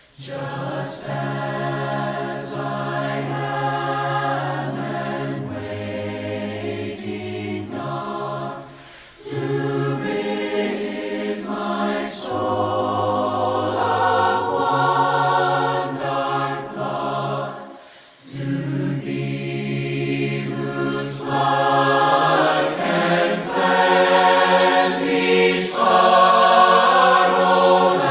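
A cappella choir singing a slow hymn in long held phrases, with short breaks for breath about 9 and 18 seconds in.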